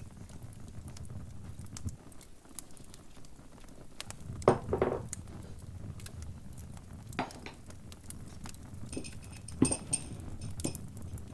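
Crackling fire: a low steady rumble with constant small crackles. A few louder pops and clinks come about halfway through and again near the end.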